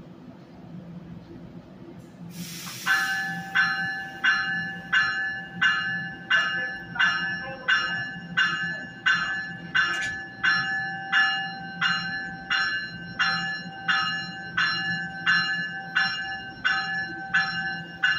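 NJ Transit push-pull commuter train's warning bell ringing steadily, about one and a half strikes a second, as the train departs. A short hiss comes just before the bell starts, over a steady low hum.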